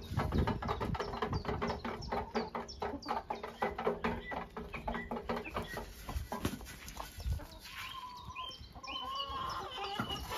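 A flock of chickens clucking as they feed, with a rapid run of short clucks and pecks through the first half and a few longer, level hen calls near the end.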